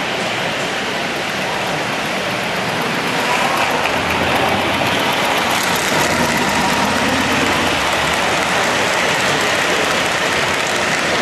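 O-gauge three-rail model freight train running past, its wheels rumbling and clattering on the track, getting louder about four seconds in as it comes close.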